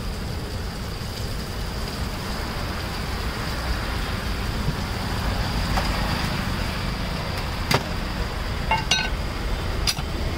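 Steady rumble of passing road traffic, with a hiss from a steel pan of vegetables simmering over a burner. A few sharp metal clinks of utensils come in the last three seconds.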